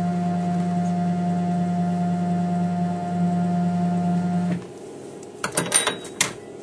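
Emco F1 milling machine's Z-axis stepper motor raising the head. It runs with a steady whine after a quick rise in pitch as it starts, and stops after about four and a half seconds. A few sharp clicks and knocks follow near the end as the tool is handled.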